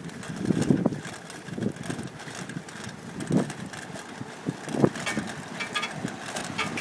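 Wind buffeting the microphone of a phone carried while riding along a street: uneven low rumbling gusts, with sharper blasts about half a second, three and a half seconds and five seconds in.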